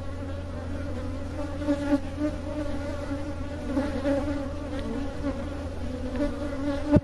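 Honey bees buzzing around an opened hive and the frame being inspected, a steady, dense hum that wavers slightly in pitch. A single sharp click sounds near the end.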